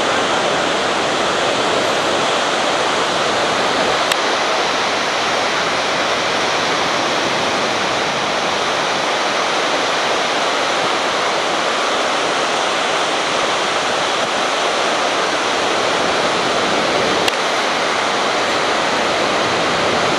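Steady rush of a fast, rocky river flowing below, loud and unbroken.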